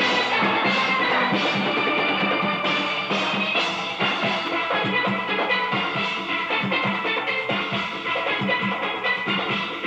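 A large steel band playing: many steelpans ringing out a melody and chords together over drums and percussion.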